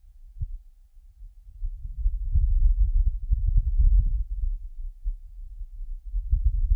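Wind gust on Mars picked up by the Perseverance rover's microphone, with the rover's own noise filtered out: a low, deep rumble that swells about two seconds in, eases off, and rises again near the end.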